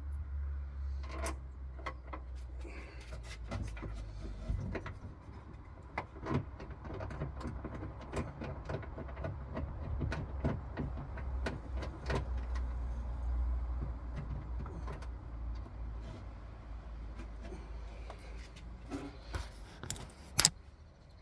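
Irregular clicks, knocks and light rattles of the metal and plastic parts inside a car door being handled and fitted, with one sharp loud click near the end, over a steady low rumble.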